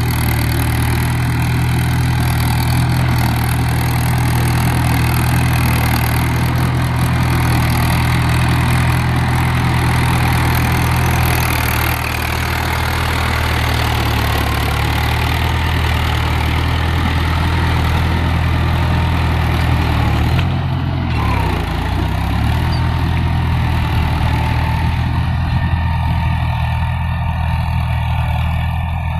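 Mahindra 415 DI tractor's four-cylinder diesel engine running steadily, with a brief dip and wobble in the engine note about two-thirds of the way through.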